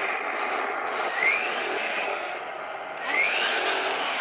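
Radio-controlled model tank's electric drive motors and gearboxes whirring as it drives, with a short rising whine twice as the motors speed up.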